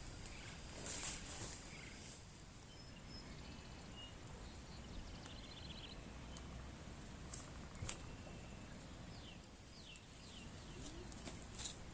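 Faint forest ambience: scattered short bird chirps and calls over a steady high hiss, with a few light clicks.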